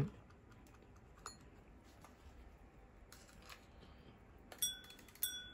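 Faint handling clicks, then near the end two small metallic clinks about half a second apart, each with a brief high ring, as wristwatches are handled on the table.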